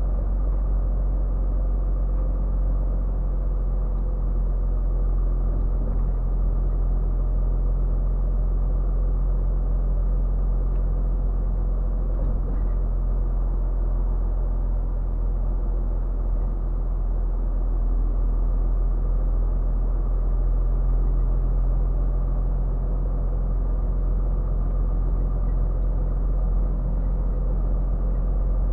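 Scania R450 truck's 13-litre inline-six diesel running steadily under way, heard inside the cab as a low drone with road rumble.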